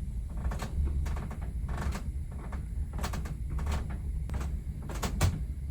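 Cabin ceiling panels of a cruise ship creaking and ticking irregularly, a dozen or so short creaks over a steady low rumble.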